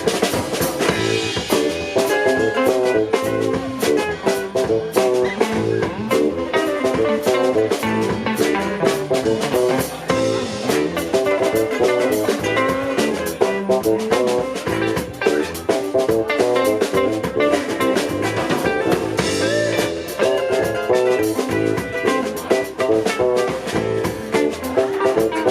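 Live rock band playing an instrumental passage, with guitar over a drum kit and no singing.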